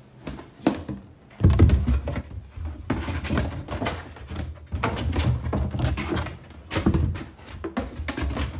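Cardboard box and moulded paper-pulp packaging being handled and pulled apart: irregular knocks, dull thuds and rustling, with the heaviest thumps starting about a second and a half in.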